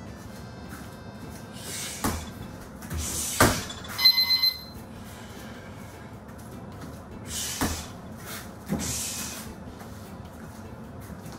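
Strikes on a heavy bag, each with a sharp hissing exhale: two heavy thuds in the first few seconds and further hiss-and-thud strikes later. About four seconds in, a digital gym round timer gives a short run of electronic beeps marking the end of the round.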